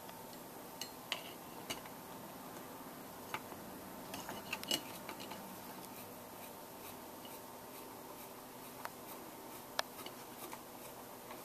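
Screwdriver turning out the screw inside an AR-15's pistol grip: faint, scattered small clicks and light metal scraping, with a few louder ticks around the middle and again near the end.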